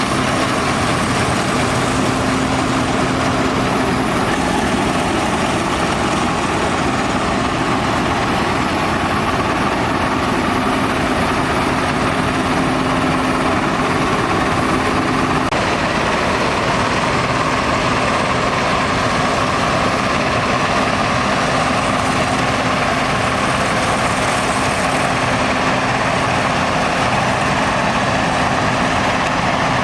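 Fortschritt E517 combine harvester running steadily at work, its Schönebeck 14.5-litre V8 diesel engine and threshing machinery making a continuous loud drone. One of its steady tones shifts slightly in pitch about halfway through.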